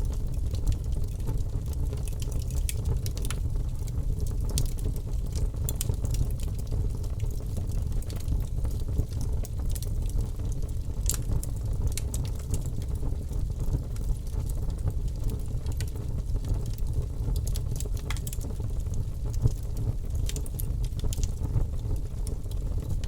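Bonfire burning: a steady low rumble with frequent irregular crackles and pops of burning wood.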